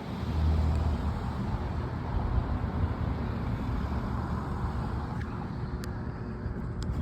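Steady low outdoor rumble of city background with a swell about half a second in, and a few faint clicks near the end.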